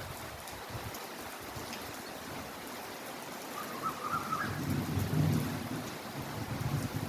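Heavy rain falling steadily. A low rumble swells in from a little past the middle and keeps going, with a brief faint wavering higher tone just before it.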